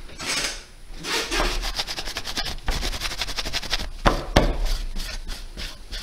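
A cloth scrubbed back and forth over a graphics card's circuit board, wiping off dust in quick rubbing strokes, with two sharper knocks a little past four seconds in.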